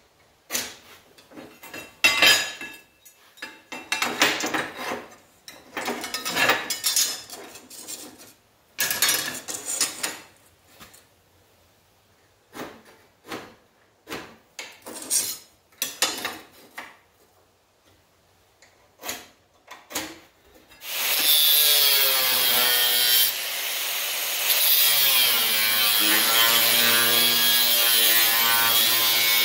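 Intermittent scraping and rubbing of steel on steel as rusty angle iron is marked out with a square on a steel bench. About two-thirds of the way in, an angle grinder starts and cuts into the steel angle iron with a cut-off wheel, its whine sagging and recovering in pitch as the wheel bites.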